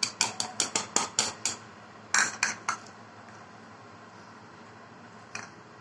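A spoon clinking against a bowl: a quick run of about ten clinks, a few more about two seconds in, then a single clink near the end.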